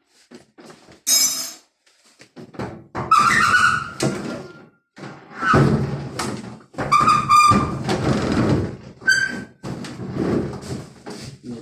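Knocks, thunks and short squeaks of a washing machine's cabinet and fittings being handled, coming irregularly with brief pauses between.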